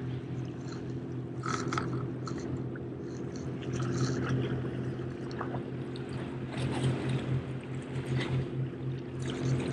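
Small waves lapping and splashing against jetty rocks, with irregular short splashes, over the steady low drone of a motorboat's engine out on the water.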